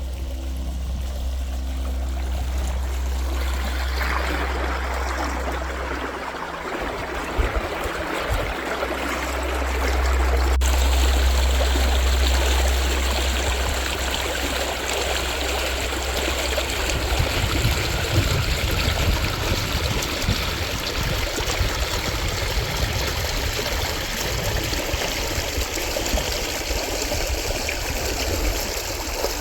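Running water, a steady rushing noise, with a low rumble underneath.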